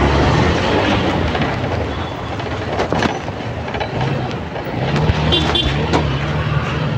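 Motorbike engine running while riding through city traffic, its low hum rising and falling with the throttle over road and wind noise. Two short high beeps come a little after five seconds in.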